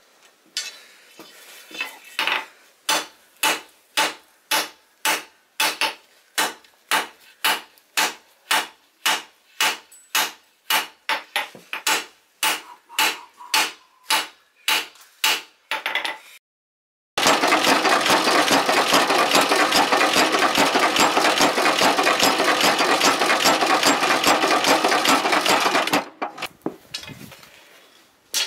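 Hand hammer striking red-hot rebar on a steel anvil, about two sharp ringing blows a second. About halfway through the blows stop, and a loud, dense, continuous clatter runs for roughly nine seconds before single blows start again near the end.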